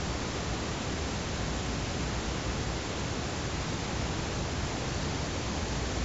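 Steady, even hiss of background noise with no clear rise and fall of breathing.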